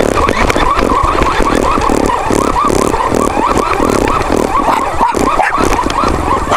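A small dog barking repeatedly, about three barks a second, over the running drive motor and tyres of a radio-controlled rover.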